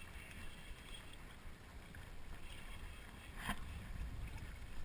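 Faint low rumble of wind and handling on the camera while a baitcasting reel is cranked during a fish fight, with one sharp click about three and a half seconds in.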